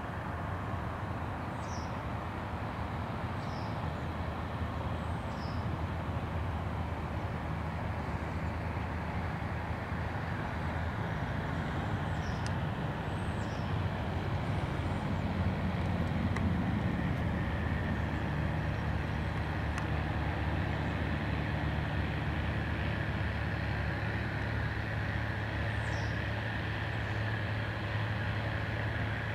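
Diesel engine of a flotation spreader buggy running steadily under load while spreading. About two-thirds of the way through it grows louder, with a steady hum and a higher whine on top.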